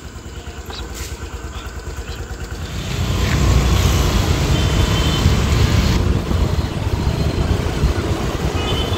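Motor scooter engine running, then from about three seconds in a louder low rumble as the scooter rides along: wind on the microphone over the engine and road traffic.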